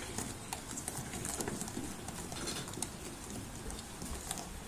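Hand mixing a wet coconut-cream batter in a stainless steel bowl set on a wooden block, with scattered light clicks and knocks.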